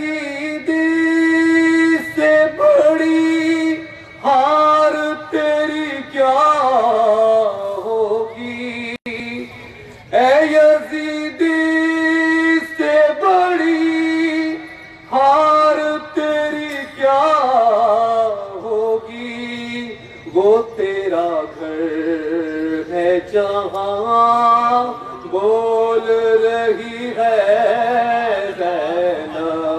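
A man chanting Urdu devotional poetry solo and unaccompanied through a microphone and PA, in long drawn-out melodic phrases with brief pauses for breath.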